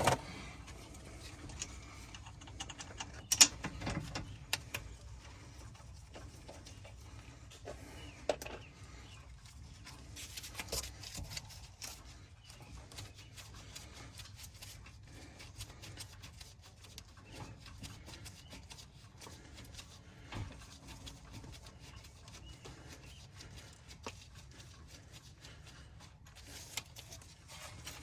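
Hand tools and brake parts being handled: scattered clicks and knocks, the sharpest about three and a half seconds in, over low background noise.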